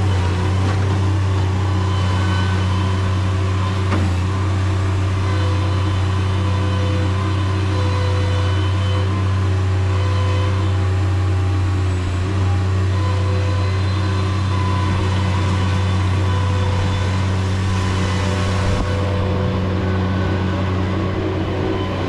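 Bobcat MT100 mini skid steer's engine running steadily, with a constant low hum and fainter on-and-off whining tones above it.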